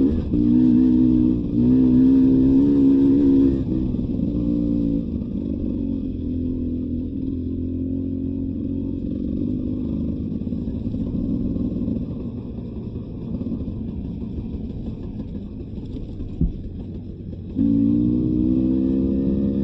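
Beta 300 RR two-stroke dirt bike engine running under throttle, then easing off after about four seconds to a lower, quieter run, and opening up again near the end. A single short knock comes about three-quarters of the way through.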